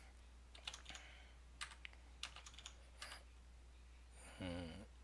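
Computer keyboard keystrokes: a dozen or so scattered taps at an uneven pace, with a brief murmur of voice near the end.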